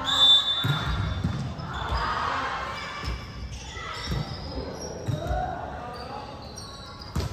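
Volleyballs thudding irregularly as they are hit and land on a gym floor, roughly once a second, in a large echoing sports hall.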